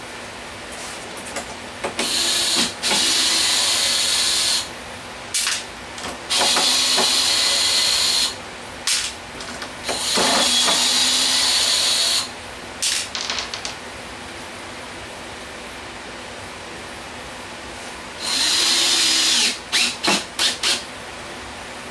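Cordless drill driving screws into a wooden board: four runs of the motor, each a second or two long, with short trigger blips between them and a quick cluster of blips near the end.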